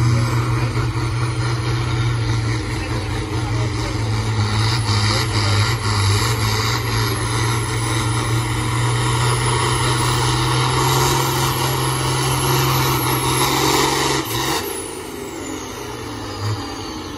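New Holland TM120 tractor's diesel engine running hard at full throttle as it pulls the sled, with a high whine riding above it. About fourteen seconds in, the engine sound and the whine drop away suddenly.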